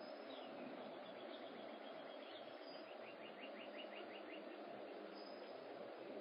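Faint outdoor ambience: a steady background hiss with small wild birds chirping, including a quick run of short, evenly repeated chirps about halfway through.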